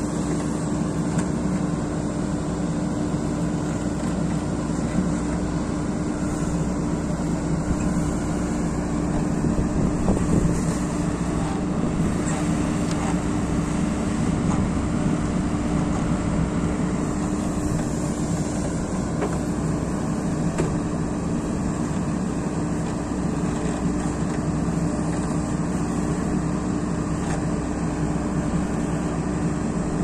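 JCB 3DX backhoe loader's diesel engine running steadily at working speed while the backhoe arm digs and swings.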